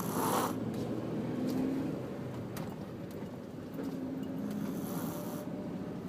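A boy snoring in deep sleep, two long snores about two and a half seconds apart, with a short burst of noise at the very start.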